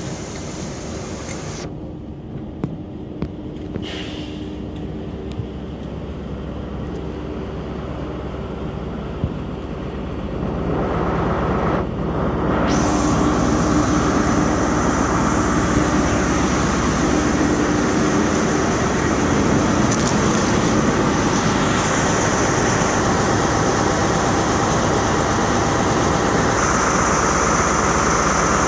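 First Great Western High Speed Train: Mark 3 coaches running past, then the Class 43 diesel power car's engine and cooling fan running close by. The sound grows louder about halfway through and then stays loud and steady.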